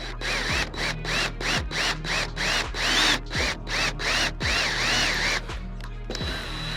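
Power drill run in quick on-off bursts, about three a second, its motor pitch rising and falling with each squeeze of the trigger as it bores the mirror-mounting hole through the car door. The bursts stop about five and a half seconds in.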